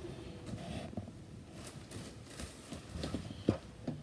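Faint, scattered light taps and knocks from objects being handled, the loudest about three and a half seconds in.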